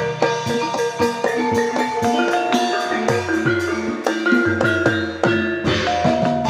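Javanese gamelan music: bronze metallophones ring out struck, overlapping notes over drum strokes at a steady beat.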